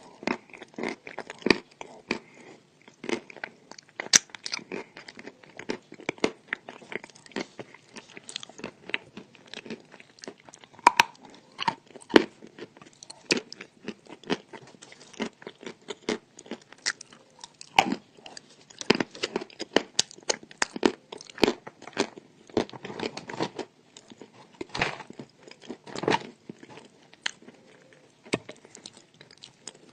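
A person biting and chewing pieces of chalk: a dense, irregular run of sharp, crisp crunches and clicks.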